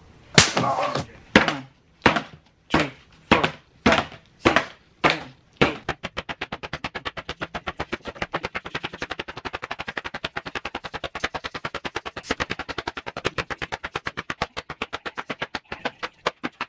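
Open hand slapping a sheet of painted paper again and again: about nine separate sharp slaps roughly half a second apart, then, about six seconds in, a fast rapid-fire run of slaps several a second.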